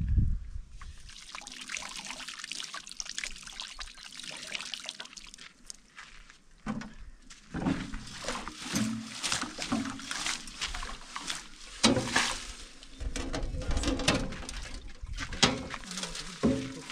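Water pouring from a plastic watering can over hands and splashing into a cement-smeared wheelbarrow. In the second half, a few sharp knocks as the wheelbarrow is handled and tipped up.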